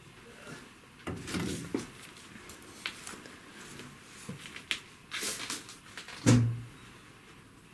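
Scattered clicks, knocks and rustles of household objects and cupboards being handled, with one louder knock about six seconds in.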